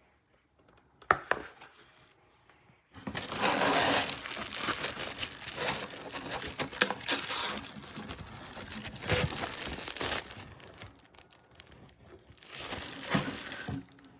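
Packaging crinkling and rustling as it is handled: a single click about a second in, then a long spell of crinkling lasting about seven seconds and a shorter one near the end.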